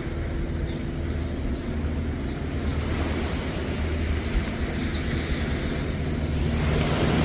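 Sea waves washing onto the beach, with wind buffeting the microphone.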